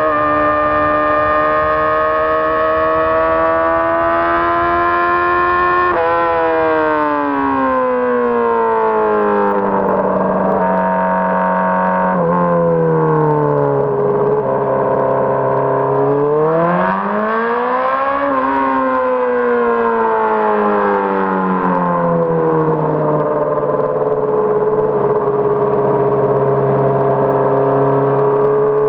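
Inline-four engine of a 2006 Honda CBR600RR running steadily under the rider's throttle. Its pitch holds, sags in two steps from about six seconds in, swells briefly about two-thirds of the way through, then falls back and holds low.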